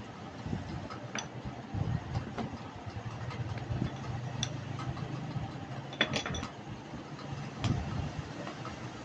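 A few light clicks and clinks of small hard parts being handled, over a low background hum.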